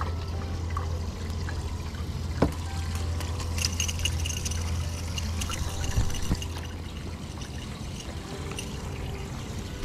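Boat livewell pump running, water pouring and trickling into the bait well over a steady low hum. The hum fades about two-thirds of the way through, and a few small clicks come from handling the rod and line.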